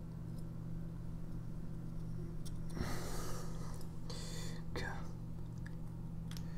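Pencil marking screw-hole positions on ceramic tile through a slide bar's mounting bracket: two short scratchy rustles about three and four and a half seconds in, with faint clicks, over a steady low hum.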